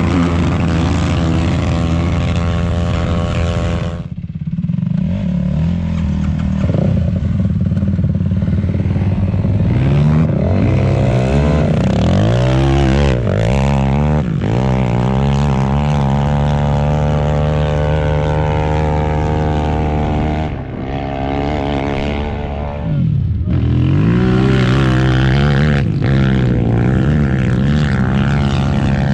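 Sport ATV engines revving hard on sand-dune climbs, the pitch rising and falling with throttle and gear changes. The sound changes abruptly a few times.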